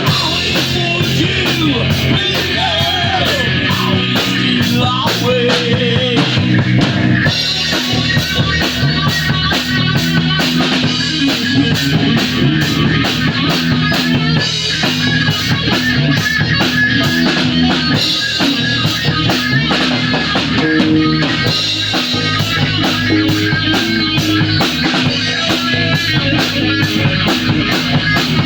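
A rock band playing live in rehearsal: drum kit, electric guitar and bass guitar over a fast, steady beat. The sound thickens and gets heavier about seven seconds in.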